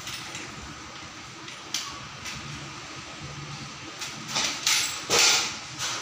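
Electrical wire being fed through the end of a metal spotlight track rail, scraping against the metal. A few light clicks come first, then a run of short scraping rustles near the end.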